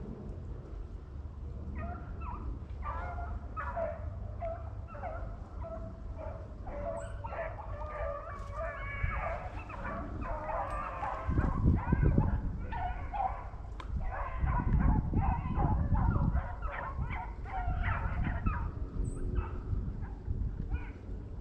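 A pack of rabbit hounds giving voice: many overlapping short barks and bawls from several dogs, continuing without a break. Two stretches of low rumbling noise come through around the middle.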